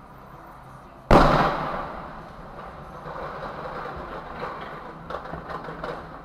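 A truck crash: one sudden loud impact about a second in, followed by a noisy crashing and clattering tail that slowly fades, with a few sharp clicks near the end.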